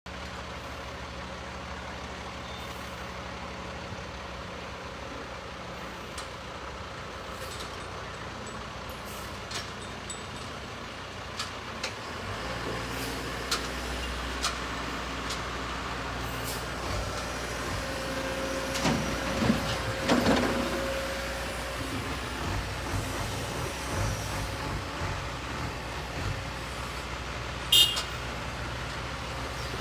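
Excavator engine running steadily, getting louder about twelve seconds in, with scattered clanks and knocks and a sharp loud clank near the end.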